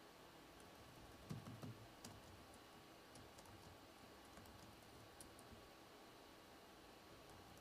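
Faint computer keyboard typing: scattered key taps over quiet room tone, with a short cluster of louder taps about a second and a half in.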